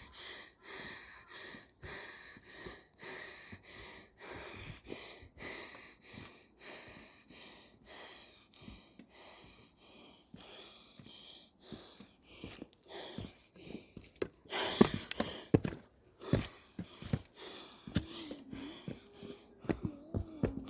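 A person breathing hard and panting in a steady rhythm, out of breath from climbing stairs. A few sharper knocks come about two-thirds of the way through.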